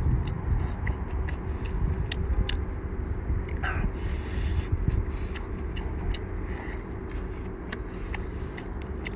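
Eating sounds from boiled lobster: many small sharp clicks of shell cracking and chewing, with a short slurp about four seconds in. Under it runs a steady low rumble.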